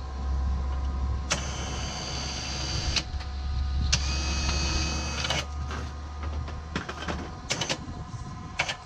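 Mad Dog electric ATV winch running, spooling its strap in and out: two runs of about a second and a half each, then several short jogs near the end, over a low steady hum.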